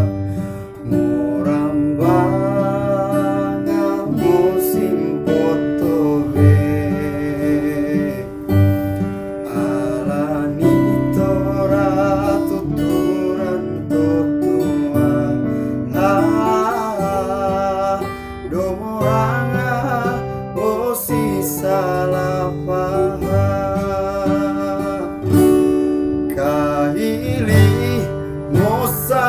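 A young man singing a song in the Kaili language, accompanied by a strummed acoustic guitar.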